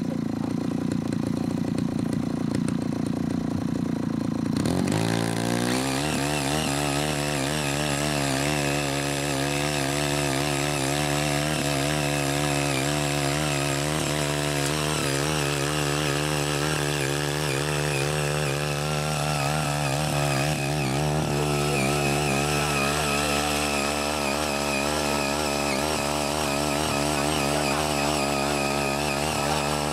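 CHING YEE CY80 mini cultivator's small engine running at low speed, then speeding up about five seconds in and running steadily under load as its rotary tines till and weed the soil.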